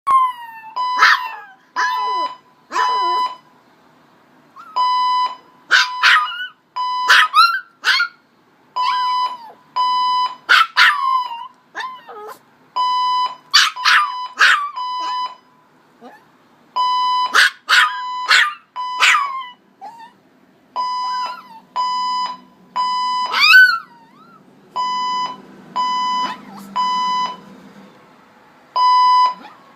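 A Pomeranian barking, yipping and howling along with a fire alarm. The alarm beeps in groups of three, repeating about every four seconds, the standard pattern of an alarm going off.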